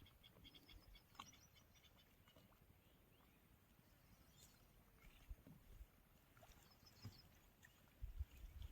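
Near silence: faint outdoor ambience with a quick run of faint high chirps in the first second or so and a few soft low thumps near the end.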